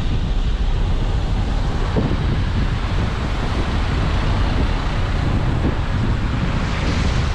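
Wind buffeting the microphone of a camera held at a moving car's window, over the car's steady tyre and road noise.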